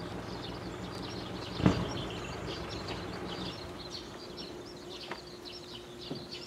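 Small birds chirping rapidly, many short high calls one after another, over a low steady engine hum. A single dull thump comes a little under two seconds in.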